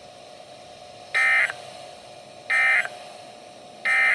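NOAA Weather Radio SAME end-of-message data bursts: three identical short buzzing digital bursts about 1.4 s apart, the signal that closes the Required Weekly Test broadcast.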